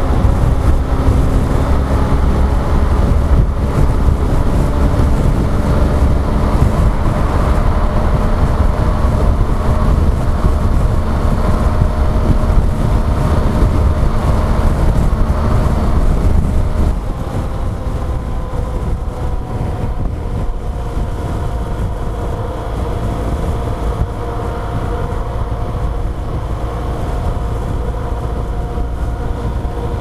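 BMW R1200 GSA boxer-twin engine running steadily at freeway speed under heavy low wind rumble on the microphone. The rumble drops off sharply about halfway through.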